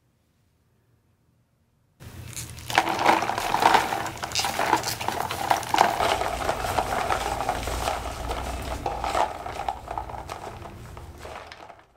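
Ice cubes clinking and knocking against a plastic tub, with water sloshing, as bunches of flower stems are pushed down into ice water. It starts suddenly about two seconds in and fades near the end.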